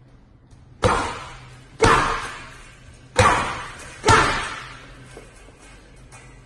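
Four hard gloved right-hand punches landing on a large leather teardrop-shaped heavy bag, each a sharp thud with an echoing tail, the first about a second in and the last about four seconds in.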